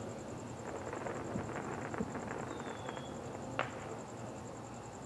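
Faint, scattered crackling with a few soft pops, and one sharper crack about three and a half seconds in: the tail of fireworks crackle dying away.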